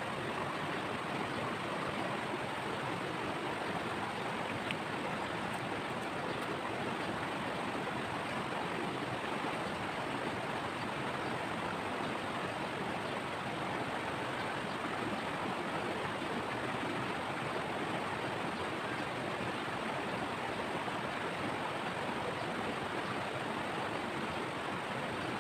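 Steady rush of a shallow, rocky river flowing over and between stones.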